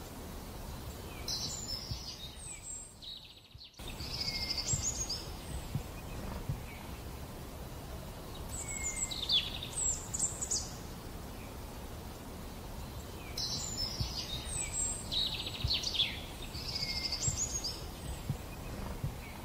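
Songbirds singing in short, high, quick phrases in three bouts over a steady low background noise; the sound briefly drops almost to silence about three seconds in.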